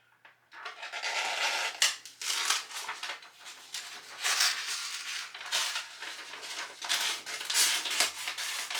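Edge of a freshly rehandled axe being drawn through a thin material in a sharpness test. It makes a series of rasping tearing and cutting strokes, the material tearing as much as it is cut.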